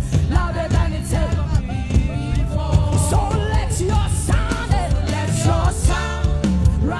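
Worship song played by a band: a sung melody over drums, cymbals and a heavy bass line, at a steady beat.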